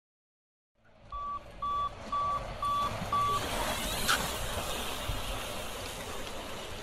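BMX starting gate: five short electronic beeps about half a second apart, then the gate drops with a sharp metal clang about four seconds in. After it comes a steady rumble of bike tyres on the asphalt start hill.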